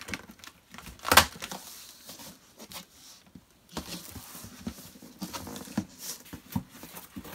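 Cardboard shipping box being opened: scissors working along the top seam, a loud sharp crack about a second in, then the cardboard flaps being pulled open and folded back with rustling and light knocks.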